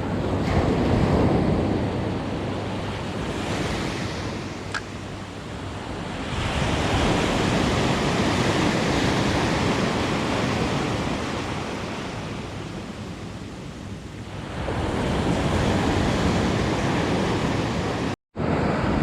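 Surf breaking and washing up a beach, swelling and fading in slow surges about three times, with wind buffeting the microphone. The sound cuts out briefly near the end.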